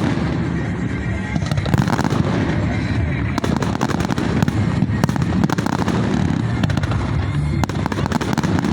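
Fireworks going off in quick succession: a dense, steady crackle of many small bangs and pops over a low rumble.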